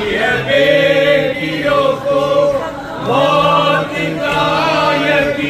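A man's voice singing a slow Urdu lament (noha) in several phrases of long held notes.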